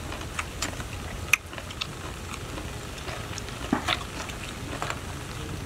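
Scattered light clicks and taps of metal tongs and a wooden skewer against grilled snail shells as the snail meat is picked out, over a steady faint background hiss.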